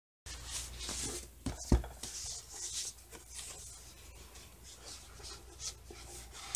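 Hardcover book being handled and opened, its paper dust jacket rustling and crinkling in short bursts, with a single knock about a second and a half in.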